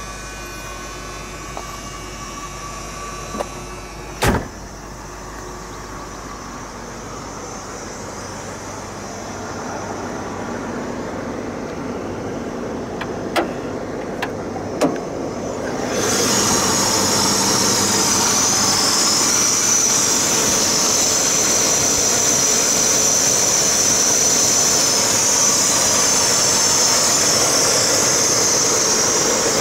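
The Lincoln's 460 V8 idling steadily. It is moderate at first, then suddenly much louder and hissier about halfway through, heard close to the open engine bay. A single sharp knock comes about four seconds in, and two small clicks come shortly before the rise.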